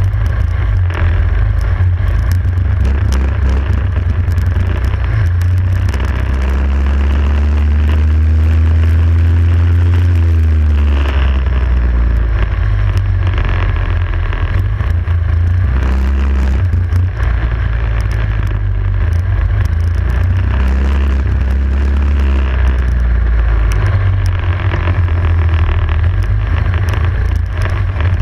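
Racing kart engine recorded onboard at race pace. Its note climbs steadily for several seconds along a straight, drops sharply as the driver lifts off about halfway through, then rises and falls again through the following corners.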